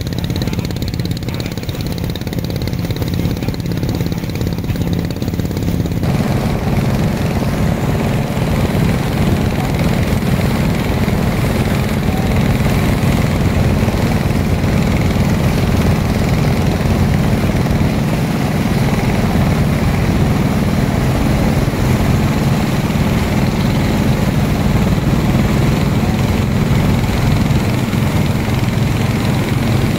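Engine of a klotok, a motorized river boat, running steadily, growing louder and fuller about six seconds in.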